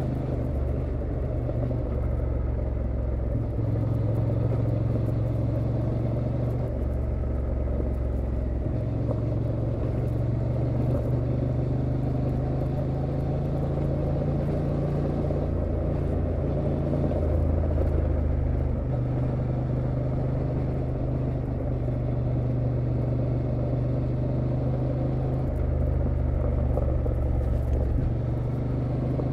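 2023 Honda Transalp XL750's parallel-twin engine running at a steady cruise, its note shifting slightly a few times with small throttle changes, over steady tyre noise on gravel.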